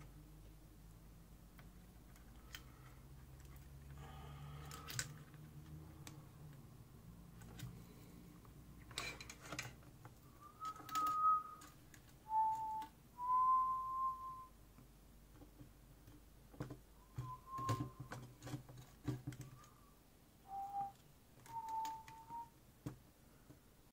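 A person whistling a handful of short notes at different pitches, each under a second, mixed with the clicks and light rattles of hands handling jumper wires and a circuit board.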